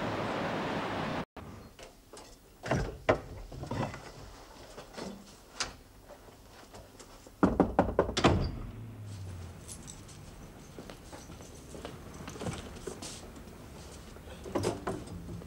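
A car passing in street traffic, cut off suddenly about a second in. Then a scattered series of clicks, knocks and thuds of handling and movement in a room, with the loudest cluster about halfway through.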